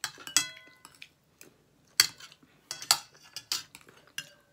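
Metal spoons clinking and scraping against ceramic bowls as food is scooped: several sharp clinks, some with a brief ring.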